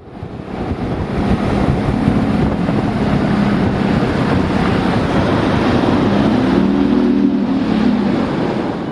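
Bass boat's outboard motor running at speed under heavy wind noise on the microphone, the engine's hum wavering up in pitch a little past the middle.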